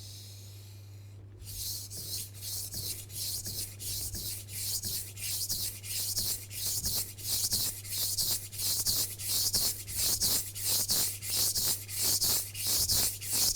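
Steel blade of a Global Japanese kitchen knife stroked repeatedly along a wet water stone, a rhythmic scraping of about two strokes a second that starts about a second in. The blade is held at a steady angle of about 15 degrees, which keeps the stone's sound even. A steady low hum runs underneath.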